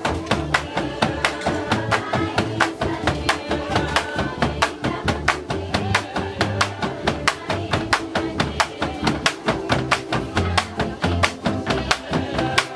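Music with a fast, steady beat of sharp percussive strikes over a bass line and plucked-string chords.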